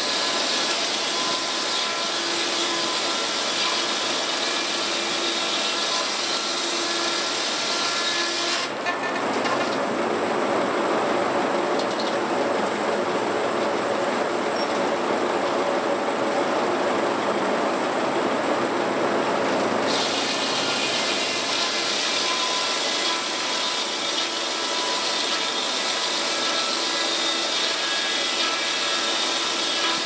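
Antique circular sawmill running, its large blade cutting a log on the carriage in a steady mechanical din. A high hiss in the sound drops away about nine seconds in and comes back about twenty seconds in.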